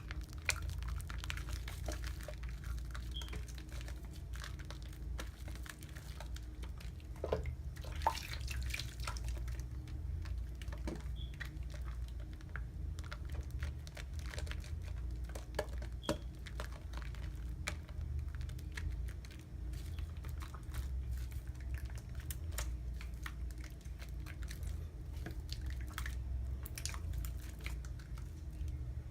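Wet soap lather being worked by hand, with irregular small wet clicks, crackles and squelches of suds over a low steady hum.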